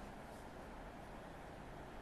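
Faint steady hiss of room tone with no distinct sound event.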